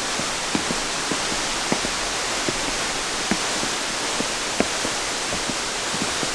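Steady rush of falling water, with frequent water drips plinking, a couple each second.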